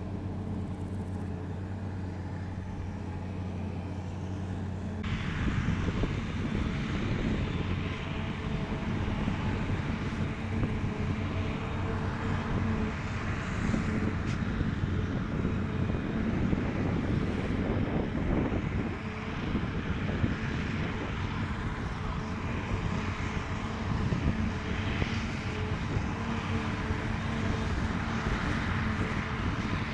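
Heavy diesel farm machinery running. A steady engine hum gives way about five seconds in to a louder, rougher mechanical noise.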